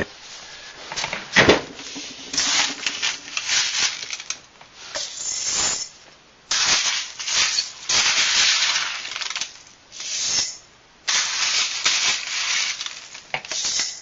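Silica gel beads rattling and hissing as they pour into a glass jar, in several bursts with short lulls about halfway and about three-quarters of the way through, and a sharp knock about a second and a half in.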